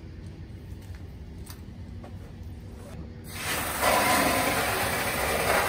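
Water starting to spray into a tarp-lined pickup bed as it begins to fill. It comes in a little past halfway as a steady hiss.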